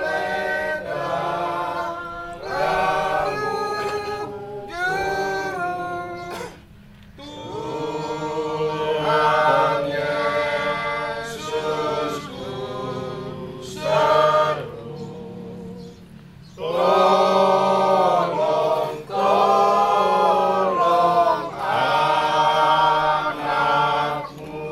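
Choir singing, in phrases with short breaks about a quarter of the way in and again past the halfway mark.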